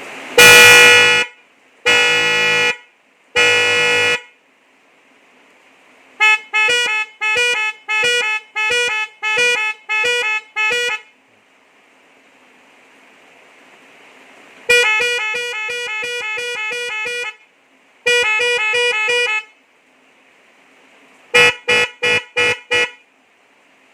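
Newly fitted horn on a three-wheeler auto rickshaw, wired through a relay, being tested. It gives three long blasts, then a fast run of about a dozen short toots, a long warbling two-tone blast and a shorter one, and a quick run of five toots near the end.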